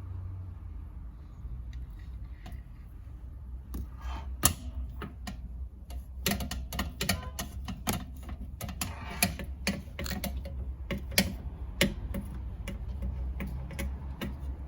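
Irregular sharp clicks and taps, sparse at first and much busier from about six seconds in, over a steady low hum.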